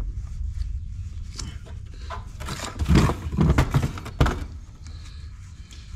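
A cluster of sharp metal clunks and knocks, the loudest about halfway through and a last one a second later, as the parts of a tractor loader's hydraulic cylinder are worked by hand while it is reassembled.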